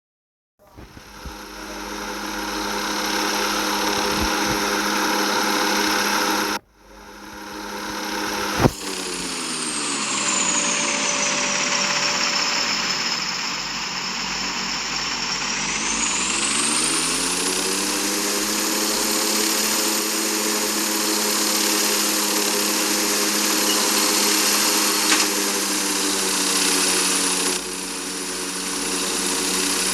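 Airplane engine noise heard inside the cabin during landing: a steady hum with a high whine. About nine seconds in, the engine pitch falls, then it climbs back up around sixteen seconds. The sound drops out briefly near the start, and there is a sharp click a couple of seconds later.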